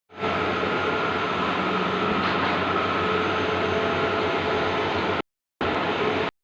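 Bluewin outdoor large-format digital printing machine running: a steady mechanical whir with a constant hum. It cuts out abruptly just after five seconds, comes back briefly, then cuts out again.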